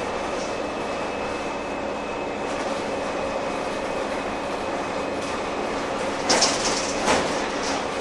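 Cabin noise inside a Heuliez GX317 LPG-fuelled city bus: its engine running with a steady hum and a thin high whine over a rumbling background. Two loud rattles come near the end, a second or so apart.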